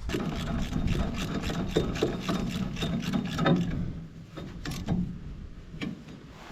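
Hand ratchet wrench clicking in quick runs of strokes as the bolts on a hay baler's airbag slides are tightened, the clicking thinning out after about four seconds. A low steady rumble lies underneath.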